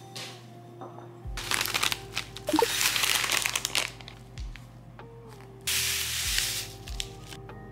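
Dry cereal flakes poured from a crinkly pouch into a ceramic bowl, a rushing rattle for a couple of seconds, then a second, shorter pour from another pouch about six seconds in. Soft background music underneath.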